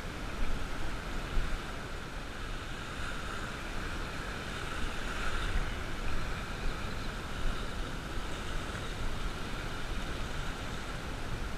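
Wind buffeting the microphone of a head-mounted action camera, with small waves washing onto the sand.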